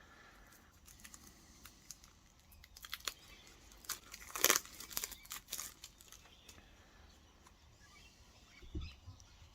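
Plastic shrink-wrap crinkling and tearing as it is worked off a deck of cards: irregular crackles, the loudest about four and a half seconds in.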